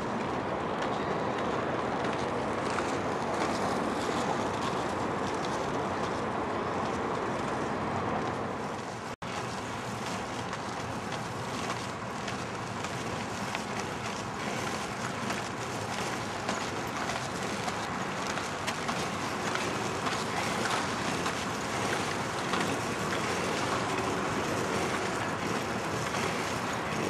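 Steady rolling rumble of inline skate wheels on asphalt, mixed with wind on the microphone. It breaks off for an instant about nine seconds in.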